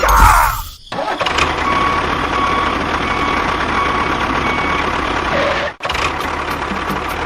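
Heavy vehicle engine running steadily and rough, with a reversing alarm beeping at an even pace. The sound breaks off briefly twice.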